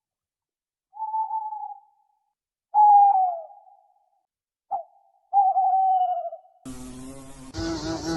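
An animal calling: four clear, whistle-like hoots, each under a second and sliding slightly down in pitch, the third the loudest. Near the end a different steady buzzing hum with a low pitch starts.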